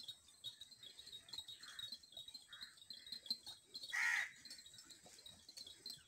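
Faint high chirping of small birds, repeating steadily, with one short, loud animal call about four seconds in.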